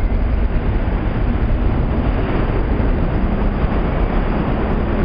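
Steady loud rumble of an underground New York City subway station with an R32 subway train standing at the platform, a faint steady hum under the noise.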